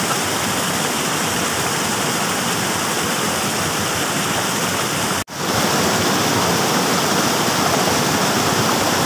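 Steady rush of stream water pouring over a small rocky cascade. The sound cuts out for a split second about five seconds in, then carries on.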